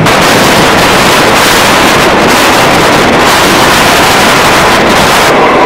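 Loud, steady rush of wind on the microphone held out of a moving passenger train's window, mixed with the train's running noise on the rails. The hiss drops away about five seconds in.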